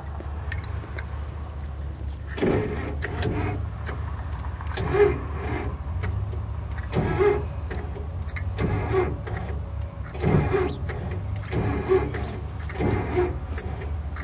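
Van's windshield wipers sweeping back and forth, each pass a short rubbing sweep about every second and a half, over a steady low motor hum.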